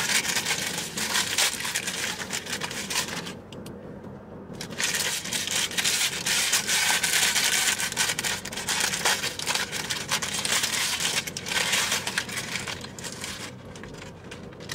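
Paper sandwich wrapper crinkling and rustling as it is peeled open by hand, in dense crackly bursts with a brief pause about a third of the way in and another near the end.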